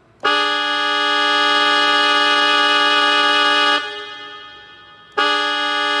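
Casio portable keyboard playing a held chord on its sforzando trumpet tone, imitating an Indian diesel locomotive's horn: one long blast of about three and a half seconds that cuts to a short fading tail, then a second blast starting about five seconds in.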